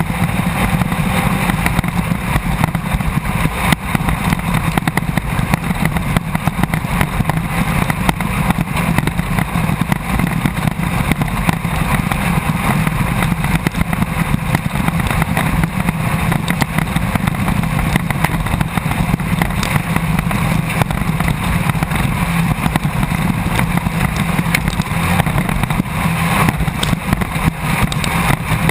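Off-road race car's engine running at steady revs, heard from inside the car, over a constant clatter of rattles and knocks.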